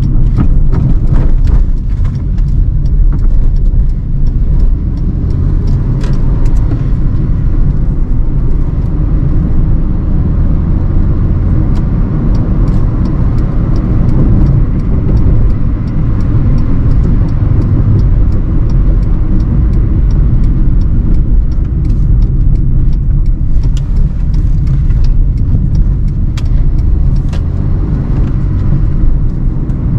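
2009 Hyundai i20 with its 1248 cc engine being driven at an easy, steady pace: a steady low engine and road rumble with tyre noise, and scattered short clicks and knocks throughout.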